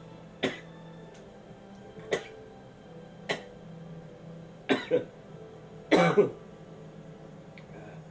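A person coughing in hard single coughs spread out over several seconds, with a quick double cough and then a longer fit of coughs near the end.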